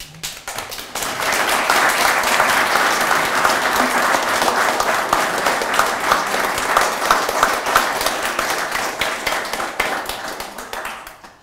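Audience applauding: many people clapping, building within the first second, holding steady, then dying away near the end.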